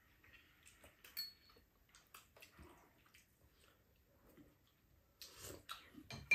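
Quiet eating sounds: chopsticks and a spoon clicking lightly against bowls, with soft slurping and chewing. A clink about a second in and a sharper clink at the very end.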